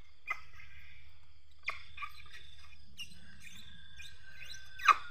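Baby Asian elephant suckling at its mother's teat: short wet slurping smacks at irregular intervals, the loudest one near the end.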